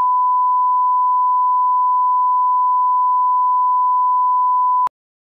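Broadcast bars-and-tone line-up signal: a steady, single-pitch 1 kHz reference tone used for setting audio levels. It cuts off suddenly near the end.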